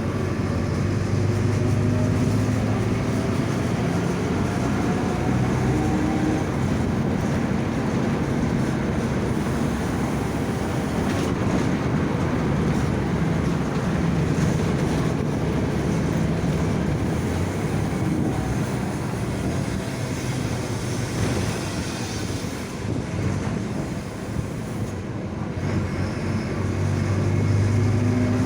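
Mercedes-Benz OF-1722M bus driving, heard from inside the cabin: the front-mounted diesel engine runs with its pitch shifting as speed changes. Under it the rear differential whines (roncando), rising in pitch with road speed, which points to a worn differential.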